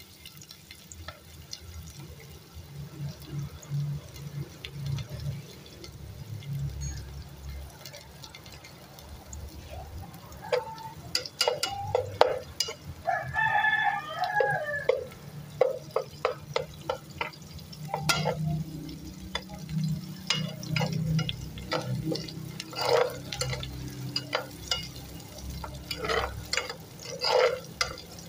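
A spoon stirring and scraping onions and garlic in a large metal cooking pot on a gas burner, giving irregular clicks and scrapes against the pot from about ten seconds in, over a steady low hum.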